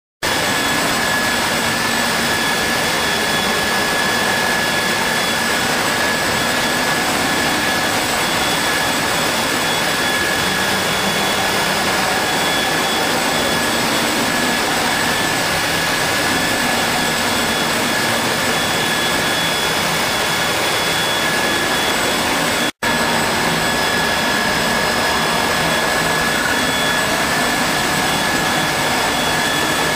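5-axis CNC machine running: a steady high whine over an even, loud hiss, unchanging apart from a momentary cut-out about three-quarters of the way through.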